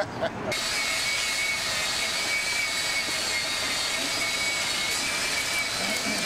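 Pressure washer running: a steady spray hiss with high whining tones, starting abruptly about half a second in.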